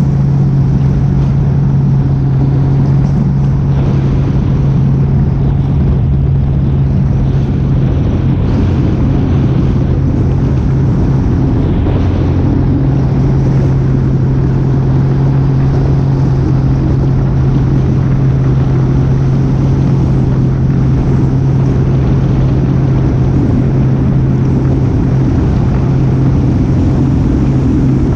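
An engine running at an unchanging speed, one steady hum under a constant rush of wind or water noise.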